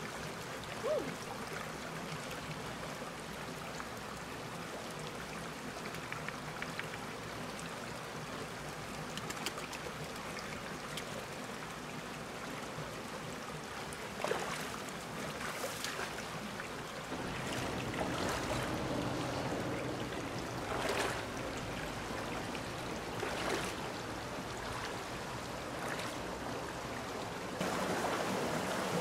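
Shallow stream running steadily over rocks, with a few short splashes in the second half as someone wades through the water. The water gets louder near the end.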